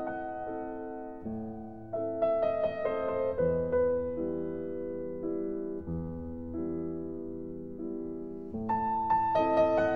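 Background music: a slow piano piece, chords struck and left to fade, a new chord every second or so.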